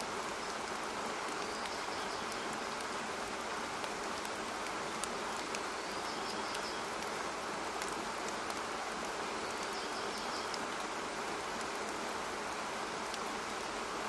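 A steady rushing hiss, with a faint short high trill about every four seconds.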